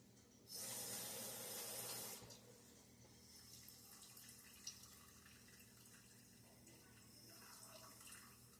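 Water tap running briefly, filling a container with water for under two seconds before it is shut off. Then faint room tone with a single light click.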